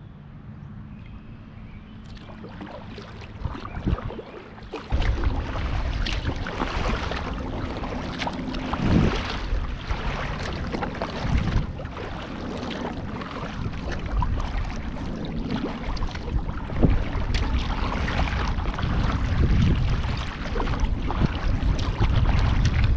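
Kayak paddle strokes splashing in the water, with wind rumbling on the microphone; the sound grows louder about five seconds in.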